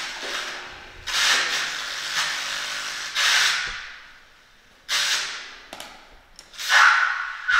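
Bursts of harsh electronic noise from homemade circuits amplified through a mixer and speaker, four times, each starting suddenly and fading away over about a second. Near the end a steady high whistle tone comes in.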